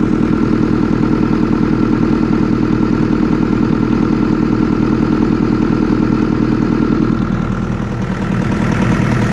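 Engine idling with a fast, even tapping, having been started after standing overnight. The owner wonders whether the tapping is valve knock. The loudness dips slightly about eight seconds in.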